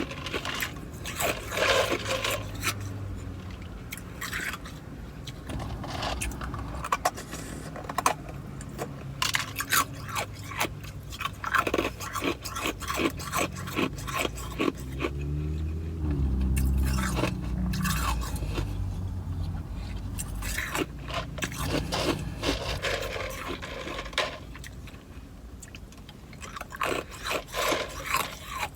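Ice being crunched and chewed close to the microphone: a long run of sharp, irregular crunches. A low rumble comes in about halfway through.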